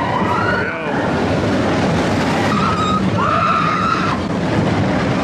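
Expedition Everest roller coaster train running along its track with a steady rumble and clatter. Riders scream over it, a short cry and then a longer held scream about three seconds in.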